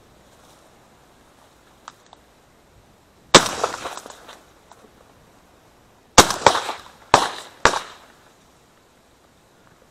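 Shotgun shots at ducks: one shot about a third of the way in, then three or four more in quick succession about three seconds later, each with a short echoing tail.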